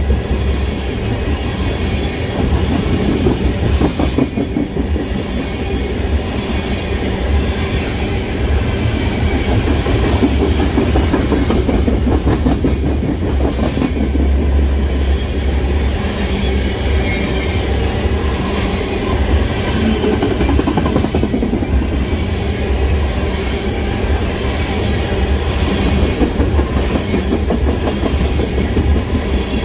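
Freight train of crude-oil tank cars rolling past: a steady, loud rumble of steel wheels on rail with the clickety-clack of wheels over rail joints.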